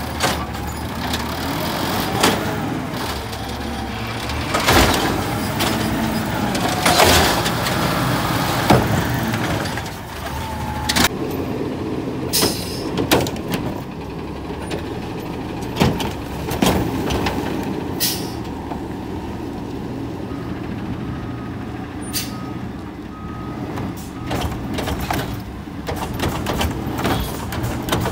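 Automated garbage trucks' diesel engines running while their hydraulic arms lift, tip and set down wheeled trash carts. The engine runs steadily, with repeated sharp clunks and bangs from the carts and arms.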